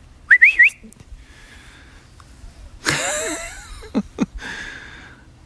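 A person whistling to call a dog: three quick rising whistles right at the start. About three seconds in comes a louder, short voiced call.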